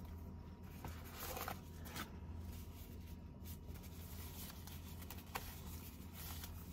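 Soft, brief crinkling and rustling of thin plastic disposable gloves being pulled onto the hands, over a faint steady low hum.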